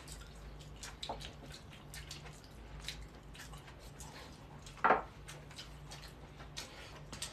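Close-up eating sounds: wet smacking and clicking of mouths chewing steamed dumplings, many small clicks with one louder one about five seconds in, over a faint steady hum.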